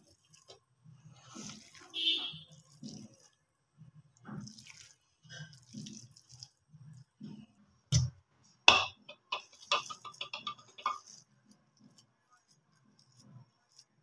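A steel spoon scraping and knocking inside a stainless-steel mixer-grinder jar as wet fish paste is scooped out, with soft wet squelches. Two sharp metal clinks come about eight and nine seconds in, followed by a quick run of scraping.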